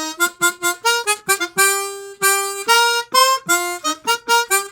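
Chromatic harmonica playing a fast melody of short, separated notes, each starting sharply and some dipping briefly in pitch at the start.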